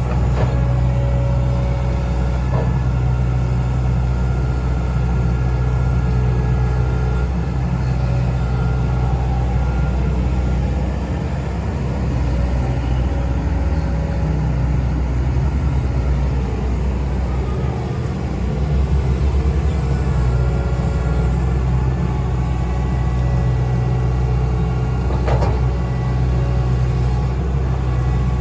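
Hitachi Zaxis hydraulic excavator's diesel engine running steadily while digging, with a few sharp knocks: one near the start, one a couple of seconds in, and one near the end.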